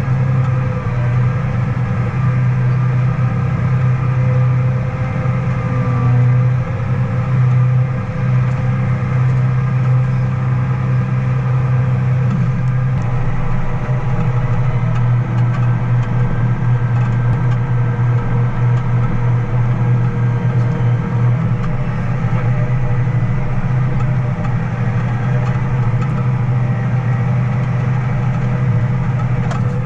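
Diesel engine of a farm harvest machine running steadily at constant speed: a continuous low drone with fainter steady higher tones.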